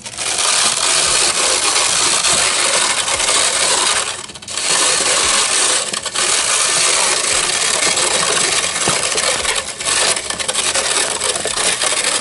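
Hand-cranked grinder of a plastic McDonald's Hamburger Maker toy being turned, grinding Rice Krispies with peanut butter and chocolate milk powder into a patty mix. The grinding is loud and continuous, with brief pauses about four and six seconds in.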